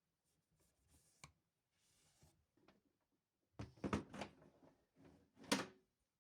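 Light knocks and clatters of household objects being handled: a cluster of sharp knocks about three and a half seconds in and one sharp click near the end, after a soft rustle.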